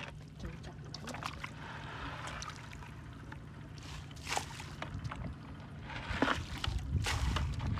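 Hands sloshing and splashing in shallow muddy water, with wet squelches of mud. Near the end the splashing gets louder and busier as a plastic bucket is pushed down into the puddle.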